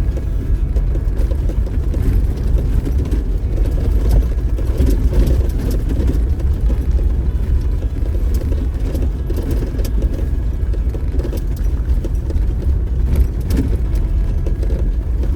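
Off-road vehicle driving slowly over a rough dirt trail: a steady low engine and tyre rumble with scattered small knocks and rattles.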